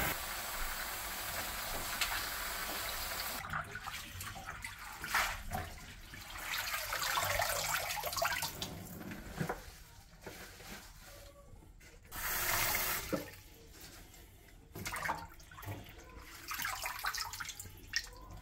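Kitchen tap running in a steady stream onto greens in the sink, shut off about three and a half seconds in. After that, water splashes and sloshes in bursts as the leafy greens are swished in the filled sink and lifted out dripping.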